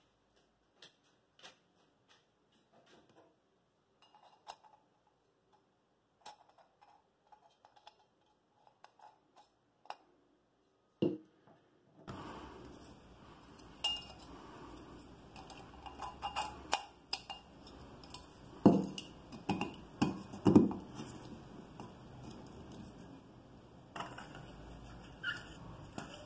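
Metal parts of a home-made alcohol stove, a sheet-metal oil-filter canister and an aluminium burner, being handled and set down on a steel workbench: scattered light clicks and clinks, then a run of louder metal knocks past the middle.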